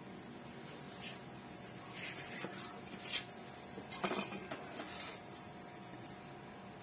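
White polystyrene foam sheet being handled and laid on a tabletop, with faint scraping and rustling and a couple of light knocks between about two and five seconds in, over a low steady background hum.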